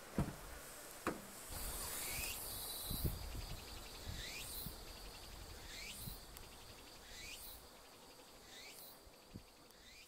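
Outdoor insect chorus: a steady high pulsing trill, with a short call that sweeps down in pitch repeating about every second and a half. Two low thumps come in the first second or so.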